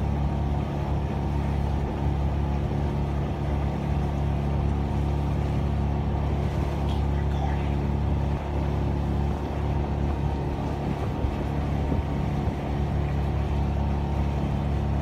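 A motor running steadily with a low hum of constant pitch.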